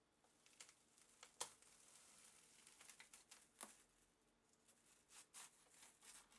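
Faint handling noises from working on an instrument: scattered light clicks and taps, with a soft crinkly rustle in the middle. The sharpest tap comes about a second and a half in.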